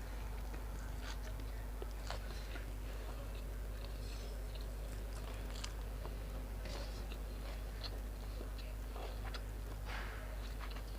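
Close-up chewing and mouth sounds of someone eating grilled pork nam tok with sticky rice: scattered soft smacks and clicks at irregular moments over a steady low hum.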